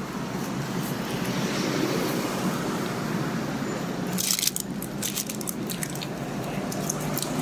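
Close-up biting and chewing of a lamb gyro in pita bread, with a sharper crunching crackle about four seconds in.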